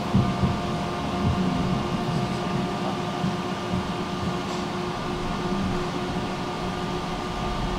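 Tram running, a steady low rumble with a few faint, steady tones held over it.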